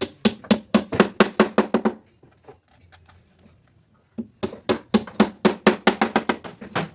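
Hammer tapping rapidly on wood, about six strikes a second, in two runs: one for the first two seconds and a second starting about four seconds in.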